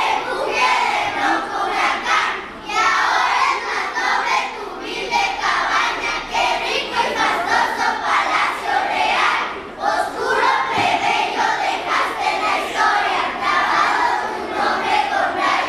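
A group of schoolchildren reciting a poem together in unison, in chanted phrases with short pauses between them.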